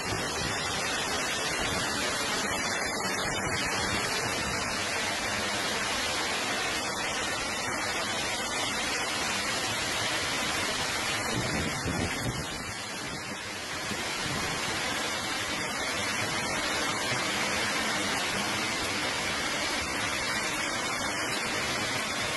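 Torrential rain and hail pouring down onto a flooded street, a steady dense rush of water that eases slightly about halfway through before building again.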